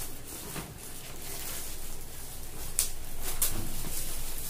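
Rustling and crinkling of shiny gift wrap, packaging and cloth being handled, with a couple of sharper crackles about three seconds in.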